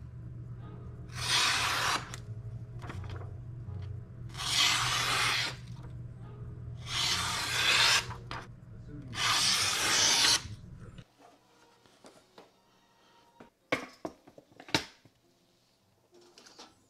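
Tormek sharpening machine's motor humming steadily under four hissing passes of a knife blade, each about a second long. The motor shuts off about eleven seconds in, and a couple of sharp clicks follow.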